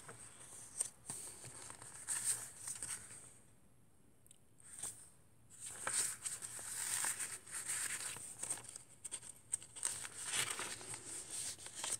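Paper and card rustling and crinkling as a handmade journal is handled: a card and tag slid out of a tuck spot and pages turned. There are small clicks and taps, a quiet pause a few seconds in, then busier rustling.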